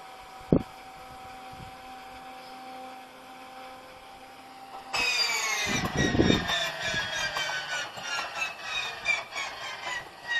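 Engine starter of a PZL M-18 Dromader's ASz-62IR nine-cylinder radial engine: a steady whine with a sharp click about half a second in. About five seconds in there is a sudden loud grinding as the starter engages, its whine falling in pitch while it turns the engine over, with heavy low thuds and then uneven pulses about twice a second. This is a troubled start attempt, the engine not running smoothly.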